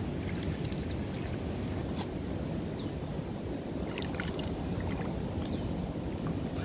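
Steady rushing noise of wind on the microphone and moving water, with a few faint clicks and short high chirps scattered through.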